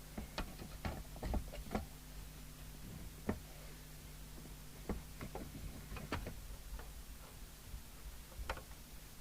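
Irregular clicks and light knocks of objects being handled on a workbench, some in quick clusters, over a steady low electrical hum.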